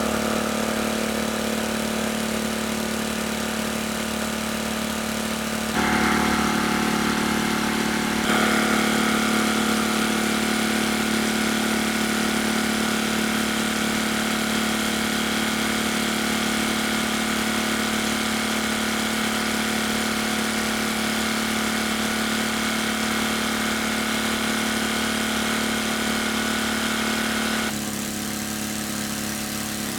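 A small engine running steadily at a constant speed, its tone changing abruptly a few times.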